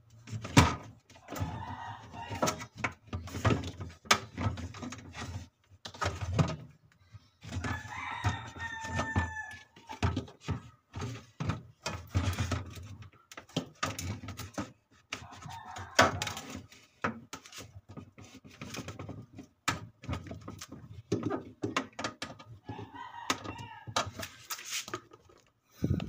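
Repeated sharp clicks and knocks of a screwdriver and hands working on a refrigerator's freezer compartment, undoing the screws that hold it. A rooster crows in the background about eight seconds in.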